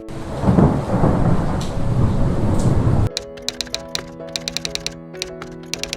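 Thunder rumbling over heavy rain, cutting off suddenly about three seconds in. Then quick runs of sharp typewriter-like clicks over soft, sustained background music.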